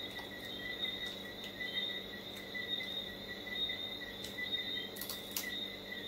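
Crickets trilling steadily in the background, a high shimmering chirp, with a few faint clicks, two of them close together about five seconds in.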